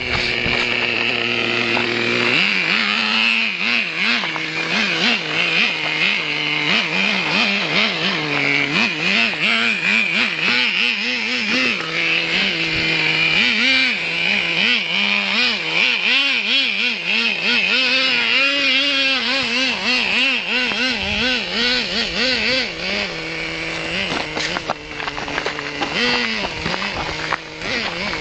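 Nitro glow engine of a Traxxas T-Maxx RC monster truck running hard, its pitch rising and falling over and over with the throttle as the truck is driven up a rough hill.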